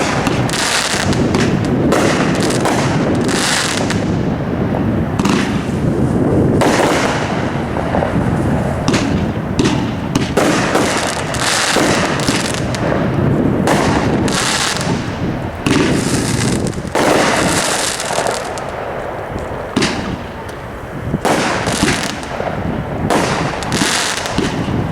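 500-gram consumer fireworks cake firing: a long run of sharp reports and bursts one after another, with a continuous noisy crackle between them.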